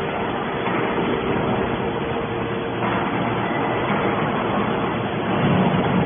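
Hydraulic scrap metal baler running: steady machine noise with a constant whine, a little louder near the end.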